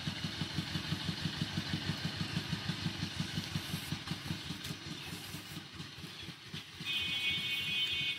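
A small engine running steadily at idle, with an even, rapid beat of about six pulses a second. About a second before the end, a high steady tone sounds briefly over it.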